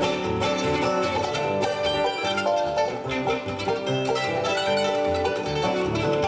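Bluegrass band playing: quick mandolin picking over acoustic guitar.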